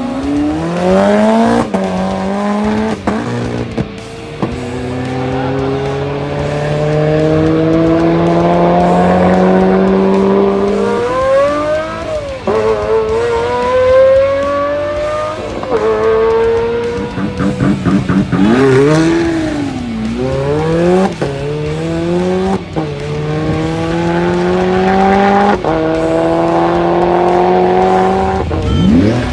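Supercar engines at full throttle as several cars launch in turn down a runway, each engine note climbing through the gears with a sudden dip at every upshift, then a long pull in the higher gears. Three or so such runs follow one another, with brief tyre squeal at the launches.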